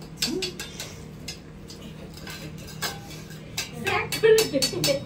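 Irregular clinks and clicks of small metal puja vessels being handled, coming thicker near the end, when a voice is also briefly heard.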